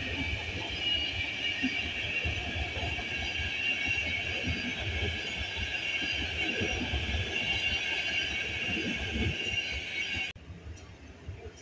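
Intercity passenger coaches rolling past on the rails: a steady rumble of wheels on track with a steady high-pitched ring over it. The sound cuts off suddenly about ten seconds in.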